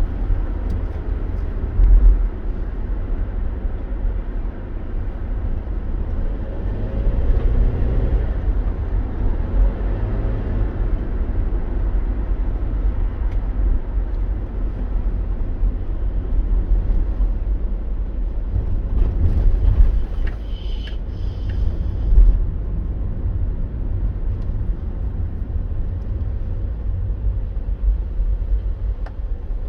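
Car driving on the road, heard as a steady deep rumble of engine and tyre noise, with a couple of brief louder bumps along the way.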